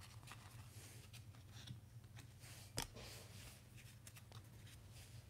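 Faint slides and ticks of a stack of baseball cards being flipped through by hand, one card snapping more sharply a little under three seconds in, over a low steady hum.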